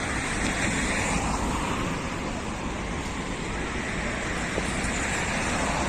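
Steady outdoor noise of sea surf mixed with road traffic.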